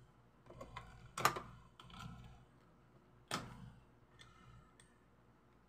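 Clicks and handling knocks from a hand at the rear panel of a Dynacord PowerMate 600 powered mixer, by its power switch. Two sharp clicks come about two seconds apart, the louder one a little over a second in, with softer knocks and rustles between them.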